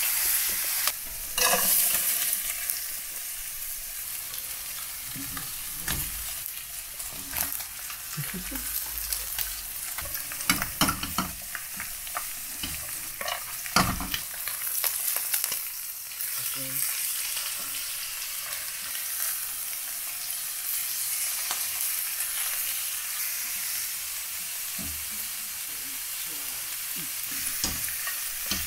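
Food sizzling in hot oil in a frying pan. A utensil stirs it, clicking and knocking against the pan now and then, loudest about a second and a half in and again near the middle.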